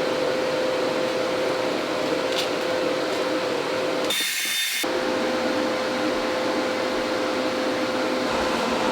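Angle grinder running steadily with a constant motor whine as it cuts a slot into the head of a steel bolt. About four seconds in, the sound changes for under a second to a thinner hiss.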